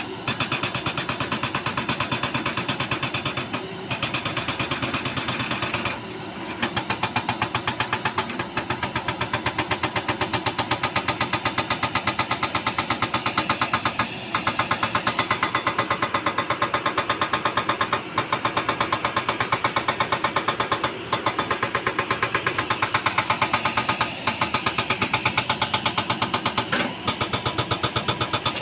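Road construction machine hammering with rapid, even blows, stopping briefly every few seconds and starting again.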